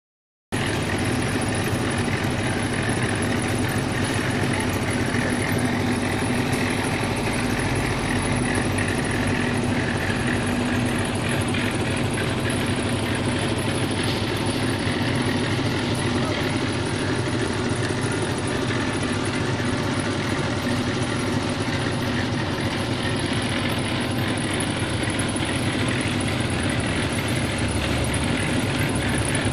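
Portable drum concrete mixer's engine running steadily while the mixer turns.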